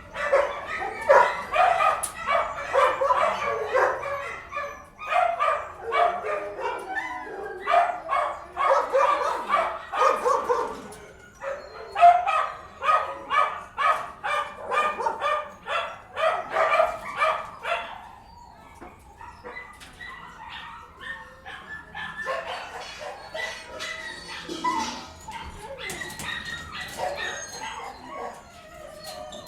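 Several dogs barking indoors, rapid overlapping barks for most of the time, thinning out to fainter, scattered barks and yips about two-thirds of the way through.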